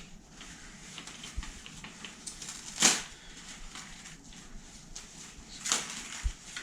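Packaging being handled while parts are pulled from a box: a loud, short crinkling rustle about three seconds in and another near the end, with light clicks and taps between.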